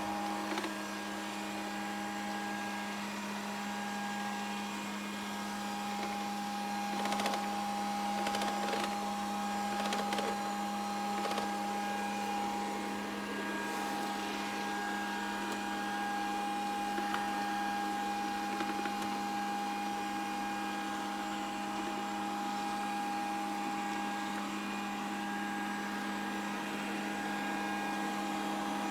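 Grundig VCR 2131 robot vacuum running: a steady motor hum with a higher whine over it, and a few light knocks and clicks between about a quarter and a half of the way through.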